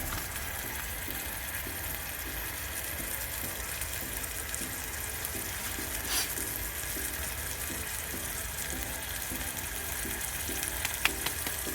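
Sliced potatoes frying in butter in a hot pan over a campfire, a steady sizzle, with one sharp click near the end.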